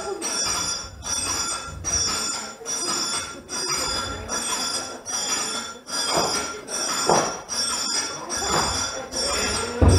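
Played-in stage sound effect of bells ringing and metal clanking, pulsing about every 0.8 seconds, with louder clanks in the second half and a heavy thump near the end.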